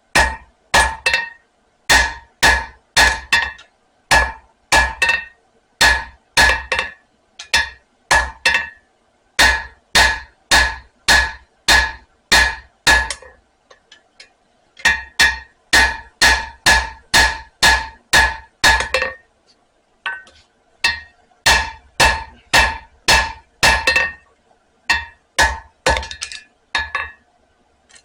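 Hand hammer striking hot spring steel on an anvil, about two blows a second, each with a bright metallic ring, while the steel is drawn out longer for a knife blade. The hammering stops briefly about halfway through and again about two-thirds through.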